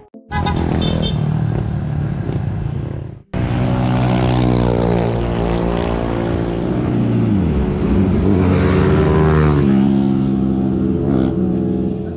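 Road vehicles, cars and motorcycles, passing close by on a highway. The engine note falls in pitch as one goes past about seven seconds in, and the sound breaks off briefly twice at cuts.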